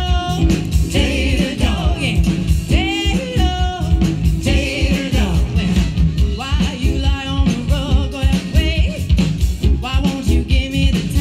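Live band music with singing: fiddle, box accordion, washboard, electric and bass guitars and drum kit playing a song with a steady beat, the sung lines wavering with vibrato.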